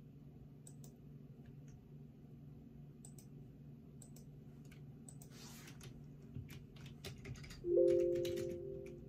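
Faint typing and clicking on a computer keyboard over a steady low hum; near the end a loud held tone of a few notes sounds and fades over about a second and a half.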